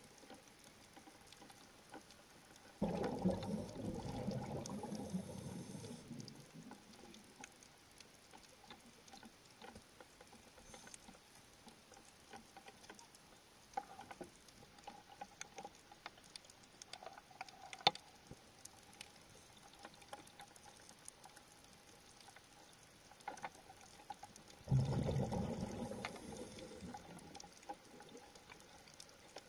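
Underwater recording: a diver's exhaled bubbles rushing out twice, each for about three seconds, with faint scattered clicks and ticks in between.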